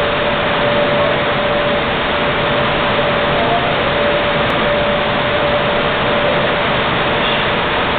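Steady, loud machinery noise with a constant hum, from car wash equipment running in the bay.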